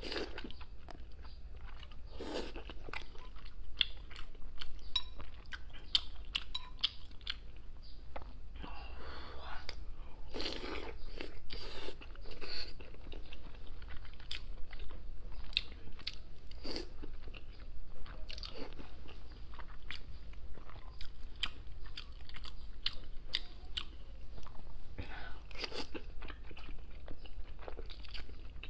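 Close-miked eating of soft braised pork brain: wet chewing, lip smacks and many small irregular mouth clicks, with a few longer wet sounds now and then.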